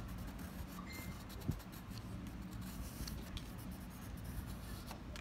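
A black crayon scratching and tapping on watercolour paper in short strokes and dots, with one soft thump about one and a half seconds in, over a steady low hum.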